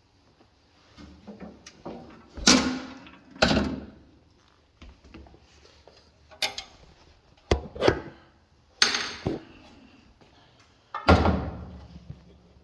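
Half a dozen loud clunks and knocks, each ringing briefly, spread across the stretch, with lighter clatter in between: heavy parts of a combination jointer-planer being handled and set in place.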